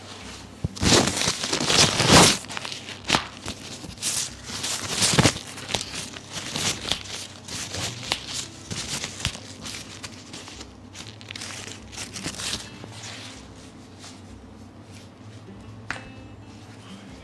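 Rustling and rubbing of cloth and skin as a chiropractor handles a patient during treatment, in irregular bursts that are loudest about a second in and again around five seconds, fading to a quieter room after about thirteen seconds.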